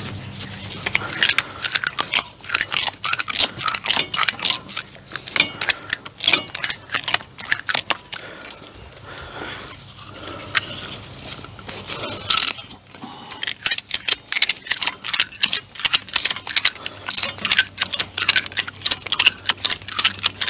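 Ratchet straps being worked by hand: rapid, irregular metallic clicking of the ratchet mechanism in two long spells with a quieter pause in the middle, as the straps are drawn tight to stretch wire fencing.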